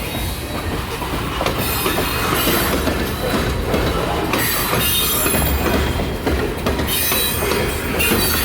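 Freight cars rolling past close by: a steady rumble and clatter of steel wheels on the rails, with patches of high hiss or squeal from the wheels coming and going every second or two.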